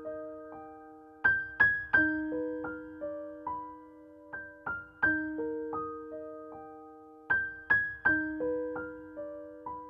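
Slow background piano music: single notes struck one after another and left to ring and fade, over lower held notes.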